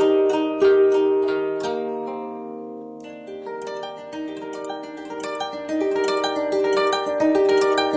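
Shamisen music: plucked notes in a quick run, settling on a long low note that fades away, then the playing picks up again in a steady flow of notes.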